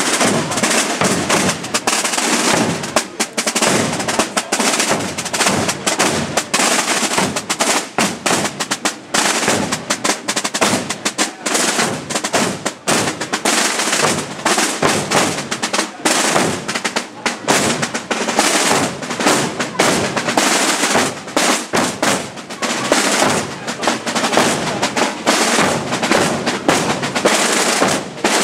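A group of marching field drums beaten with sticks, many drummers playing together in a rapid, continuous drumbeat.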